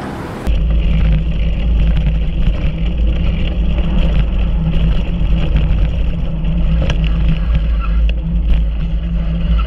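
Heavy wind buffeting on the microphone with vehicle running noise, as from riding in the open on a moving vehicle. It starts abruptly about half a second in and stays loud and steady.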